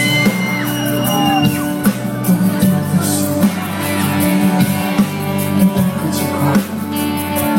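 Music: an instrumental passage of a pop song, with a band playing steadily between sung lines.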